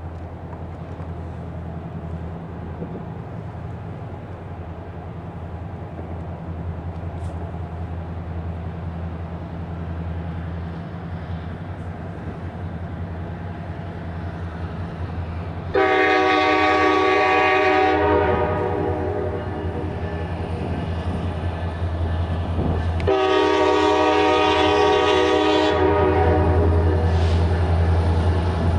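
Diesel freight locomotive approaching a grade crossing at a crawl, its engine a steady low rumble that grows louder. A little past halfway it sounds its multi-note air horn in a long blast of about two seconds, then a second long blast about five seconds later.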